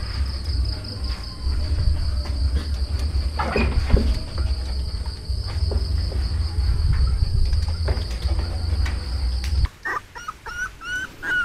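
Crickets chirping in a steady, pulsing high trill over a low hum. Both stop sharply about ten seconds in, and a run of short, rising squeaks from whimpering dachshund puppies follows.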